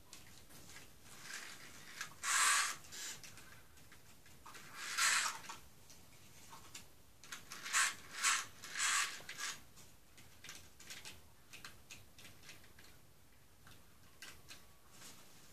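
Small plastic toy construction vehicles being handled and moved about, with light clicks and clatter. Five short, hissy scraping bursts come about 2.5, 5 and 8 to 9 seconds in.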